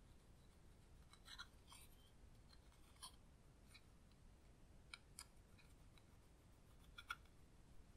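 Faint scratching and crumbling of pressed powder eyeshadow being scraped out of a plastic palette pan with a pointed tool, in short scattered strokes, a few clusters of scrapes with pauses between them.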